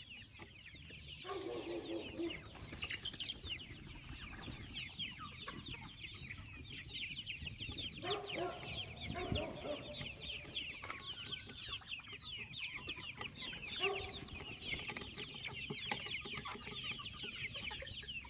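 A flock of young free-range chickens peeping and clucking: many short, high, falling chirps without pause, with a few lower clucks now and then.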